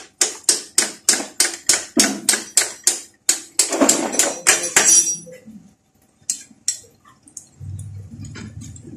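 Ratchet wrench clicking in even strokes, about three to four a second, for about five seconds as a motorcycle shock absorber bolt is undone, then a few scattered clicks. A low steady hum comes in near the end.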